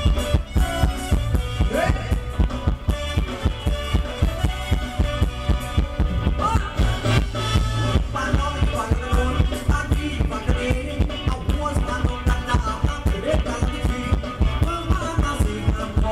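Amplified live band playing Phetchaburi-style ramwong dance music: a steady beat with strong bass and melody lines over it.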